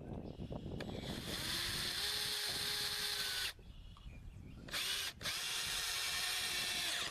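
Power drill running in long runs with a steady whine, stopping for about a second midway and again briefly just after restarting.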